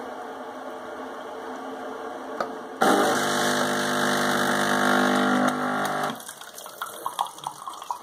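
Braun Tassimo pod coffee machine brewing, its normal tractor-like working noise. A steady rattling hum jumps about three seconds in to a loud buzzing drone from the pump, which cuts off suddenly about six seconds in. Irregular spurts and drips follow as the coffee runs into the glass.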